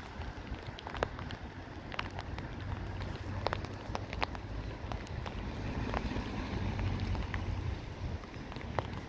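Wind buffeting the microphone as an uneven low rumble, with scattered light ticks.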